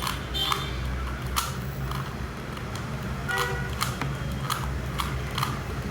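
Plastic Rubik's cube being turned by hand: a string of sharp clicks and clacks at uneven intervals as its layers are twisted.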